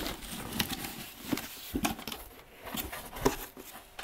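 Cardboard shipping box being handled: its flaps are pulled open and the contents reached into, giving a run of irregular rustles, scrapes and knocks, the sharpest about three seconds in.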